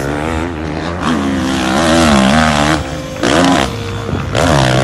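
Motocross dirt bike engine revving, its pitch climbing and dropping with the throttle, with sharp rising revs about three seconds in and again near the end.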